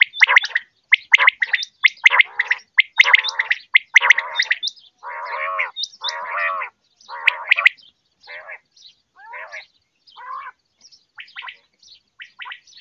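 Quail calling: a rapid series of short, rough, throaty calls, loud and close together for the first half, then fainter and more widely spaced after about eight seconds.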